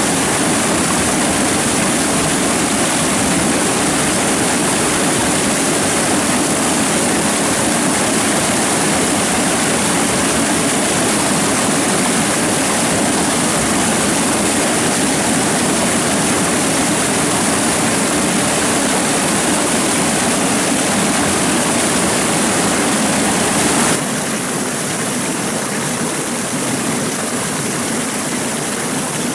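Stream water rushing steadily, a little quieter after a sudden change near the end.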